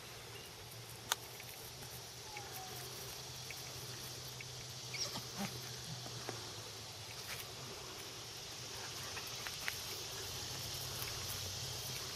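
Faint outdoor background: a steady low hum and high hiss with scattered light clicks and ticks, one sharper click about a second in.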